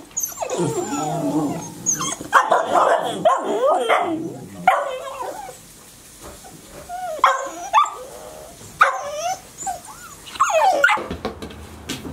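Several 73-day-old golden retriever puppies whining and yipping at once, high, wavering cries that overlap. The cries are densest in the first few seconds, ease off briefly, then come again in short bursts before stopping about a second before the end.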